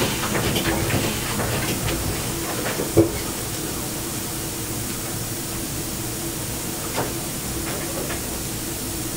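Compound steam engine of a steam tug running with a rhythmic beat, then coming to rest. There is one sharp clunk about three seconds in, after which only a steady hum and hiss of steam remain.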